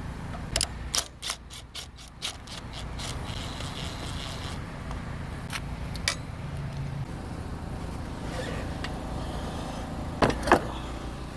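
Hand ratchet clicking in a quick run of even clicks as a 10 mm bolt on an AC line is backed off, followed by a few scattered clicks. Two louder knocks near the end.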